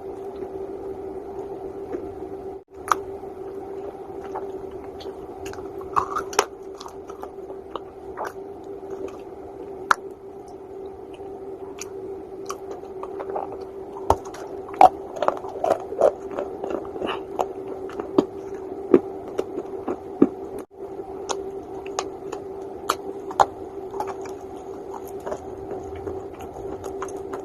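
Pieces of calaba (uko) edible clay being bitten and chewed close to the microphone: scattered sharp crunches and clicks, thickest toward the middle, over a steady hum.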